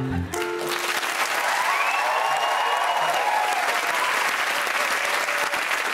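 Studio audience applauding, with a few whoops, as the last electronic keyboard notes stop in the first half-second.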